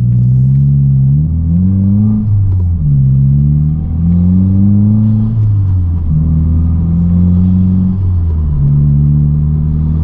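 Subaru WRX's 2.4-litre turbocharged flat-four engine heard from inside the cabin, accelerating through the gears. The revs climb and drop back three times, about every three seconds, as the six-speed manual is upshifted.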